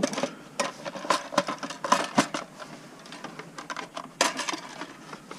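Black plastic dash trim bezel being handled and shifted about on a workbench: irregular plastic clicks, knocks and light rattles, busiest between one and two seconds in, with another sharp knock a little after four seconds.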